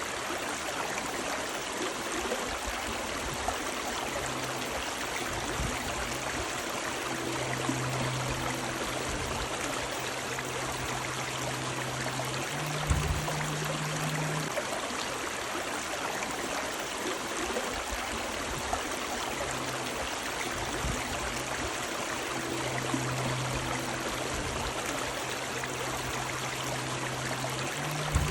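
River water running and splashing steadily, a continuous rush with no breaks. A faint low hum comes and goes underneath it.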